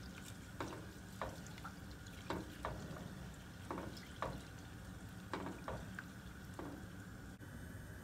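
Silicone spatula stirring boiling elderberries and rose hips in a stainless steel pot, knocking against the pot about ten times at irregular intervals, over a steady low hum.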